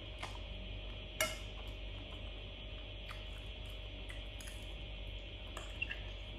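Metal fork clinking against a glass bowl of noodles. One sharp, ringing clink comes about a second in and a smaller one near the end, with softer short clicks between.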